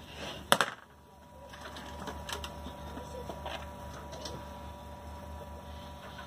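A single sharp clack about half a second in, then a few lighter scattered clicks and knocks over a faint steady hum.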